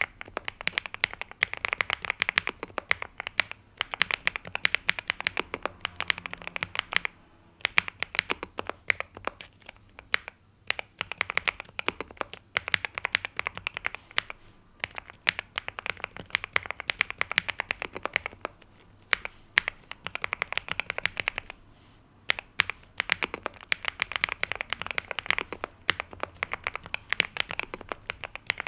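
Typing on a NuPhy Gem80 mechanical keyboard with NuPhy Mint linear switches and double-shot PBT mSA keycaps: quick runs of key clacks broken by a few short pauses.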